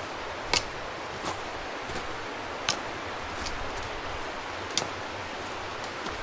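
Steady outdoor hiss with about five sharp, irregularly spaced ticks or taps over it.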